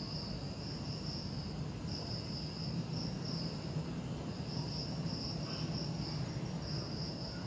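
Crickets chirring at night: a high trill that comes and goes in stretches of about half a second to a second, over a steady low rumble of background noise.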